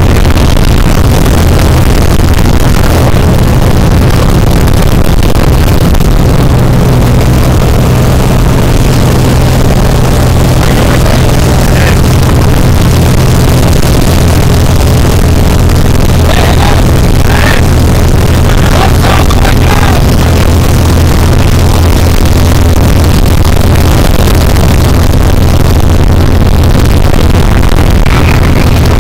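Loud, steady drone of a small propeller plane's engine and propeller, heard from inside the cabin during the climb.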